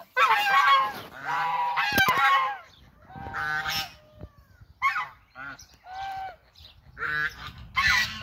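A flock of white domestic geese honking, about eight loud calls in bursts with short gaps, some overlapping. A sharp click sounds about two seconds in.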